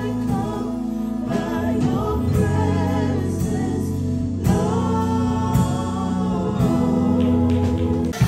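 Live worship band: several singers on microphones singing a gospel song together in harmony, holding long notes over keyboard accompaniment.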